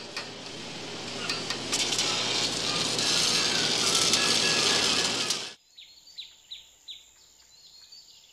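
A rising wash of noise with scattered clicks that cuts off suddenly about five and a half seconds in. Birds then chirp with short, repeated falling calls over a faint, high, steady hiss.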